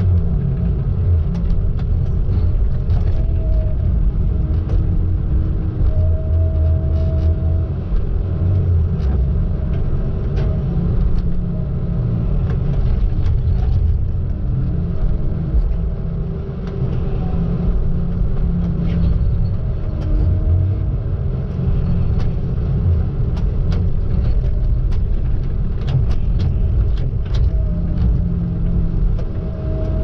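Tigercat log loader's diesel engine running with its hydraulics working the boom and grapple, heard from inside the cab: a steady low rumble with a pitched whine that comes and goes, and scattered sharp clicks and knocks.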